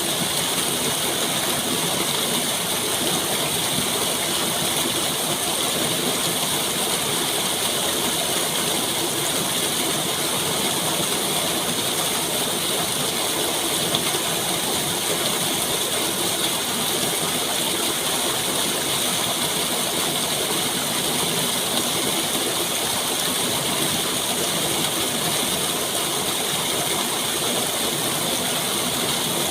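Steady rushing running water: an even, unbroken noise with no rhythm or pauses.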